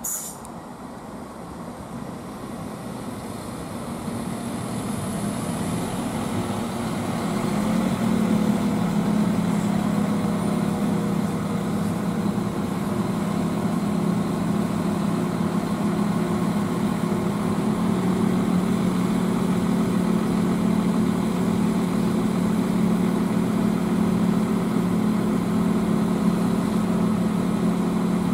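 Northern Ireland Railways Class 4000 diesel multiple unit pulling up at the platform, growing louder over the first several seconds. It then stands with its underfloor diesel engines idling in a steady low hum.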